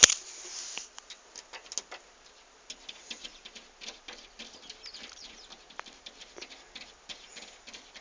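A sharp knock right at the start, then a cat's claws scratching and tapping on a glass window pane: a quick, irregular run of ticks and scrapes, several a second.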